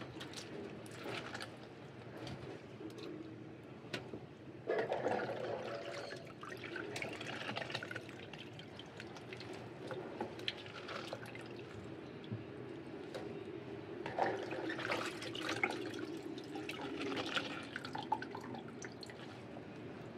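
Water dripping and splashing back into a basin as handfuls of soaked mustard greens are squeezed and wrung out by hand. It comes in irregular bursts, loudest about five seconds in and again from about fourteen seconds.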